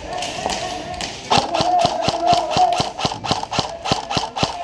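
Airsoft gun firing a quick string of shots, about four or five a second, starting a little over a second in.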